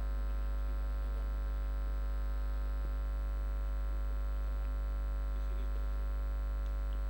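Steady electrical mains hum with a low buzz and its overtones, unchanging throughout.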